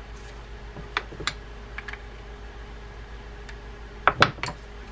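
Light clicks from handling a small spinning fishing reel, then a louder clatter of several sharp metallic clinks about four seconds in as a steel open-end wrench is picked up off the bench.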